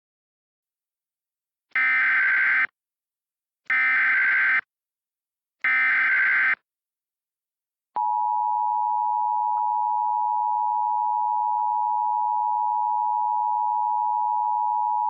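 Recreated Emergency Alert System tones: three short bursts of SAME digital header data, about two seconds apart. About eight seconds in, the steady two-tone EAS attention signal (853 and 960 Hz together) starts and holds, heralding a National Weather Service tornado warning.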